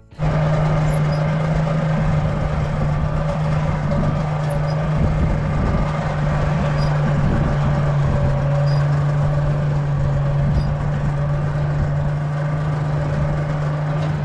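A blacksmith's forge running: a steady, loud rush of air with a strong low hum. It starts suddenly right at the beginning.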